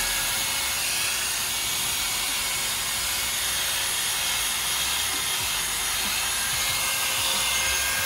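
Electric angle grinder running steadily with a buffing wheel pressed against a Royal Enfield Bullet 350's aluminium engine case, polishing it: a constant hiss with a faint motor whine.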